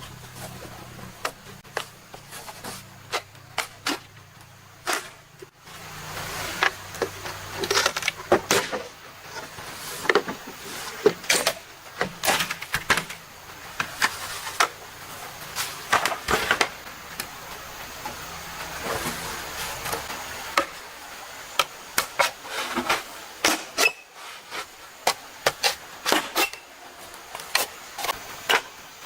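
Bamboo being worked by hand: irregular sharp knocks and cracks, some in quick runs of several, over a faint steady hiss. A low hum runs under the first few seconds.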